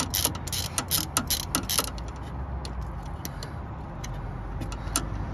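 Socket ratchet clicking quickly, about six clicks a second, as a 6 mm Allen-key bit on long extension bars winds out a gearbox drive-shaft bolt that has broken free. After about two seconds the clicking thins to a few scattered ticks.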